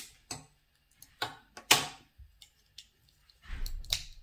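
Small plastic Lego-compatible toy pieces clicking as they are pressed and fitted together by hand: a few sharp separate clicks, the loudest a little under two seconds in, then a short dull handling noise near the end.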